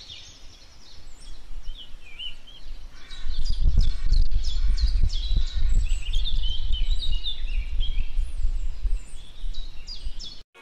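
Birds chirping and calling in quick, repeated short notes. About three seconds in, a loud low rumble comes in beneath them and stays the loudest sound.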